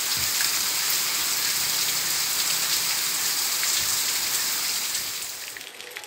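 Heavy rain pouring down steadily, a dense even hiss of the downpour on ground and trees. It drops away sharply near the end.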